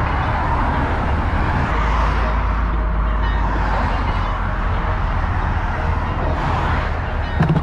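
Steady vehicle noise: a low engine hum under road and tyre rumble, with a short knock near the end.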